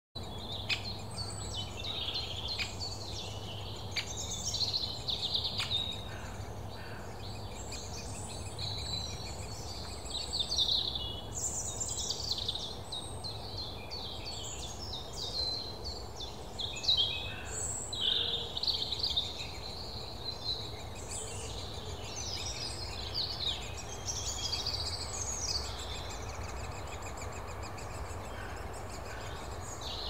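Great spotted woodpecker nestlings calling from their nest hole: a long run of short, high, repeated calls over a steady low background rumble.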